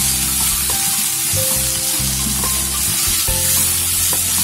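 Sliced vegetables sizzling in a hot oiled kadai while a wooden spatula stirs and scrapes them around the pan, a steady hiss with repeated stirring strokes.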